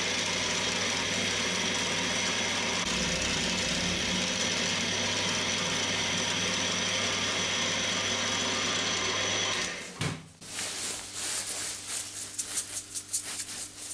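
Cormak ZX 7045 mill's spindle motor running steadily as it drills holes in an aluminium plate, switched off about ten seconds in. After that, a brush sweeping aluminium chips off the part and vise in short, uneven scratchy strokes.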